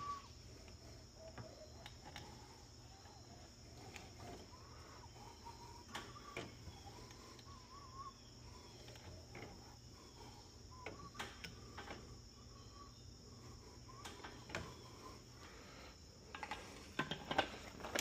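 Quiet handling of a plastic squeeze bottle of drain treatment, with faint scattered clicks over a low steady hum. Near the end, louder plastic clicks and rattles as a trigger spray bottle is picked up and handled.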